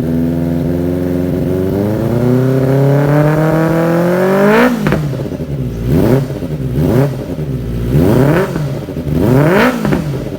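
Kawasaki ZX-25R's 250 cc inline-four engine, breathing through an R9 Austin aftermarket exhaust, idling and then revved in one long rising pull that peaks and drops sharply. It then takes a run of quick throttle blips, each rising and falling, about one a second.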